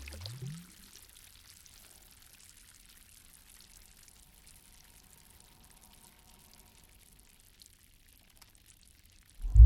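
Water pouring and gurgling close by, its low gurgles rising in pitch, dying away about a second in. Faint water ambience follows until the loud water sound starts again just before the end.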